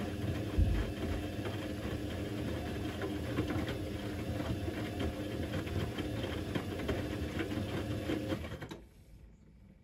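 Electrolux EWC1050 washing machine turning its drum of towels and water during the heating stage of a 90°C cotton wash: a steady motor hum with a held whine and many small clicks and knocks, one thump about half a second in. The drum stops abruptly near the end.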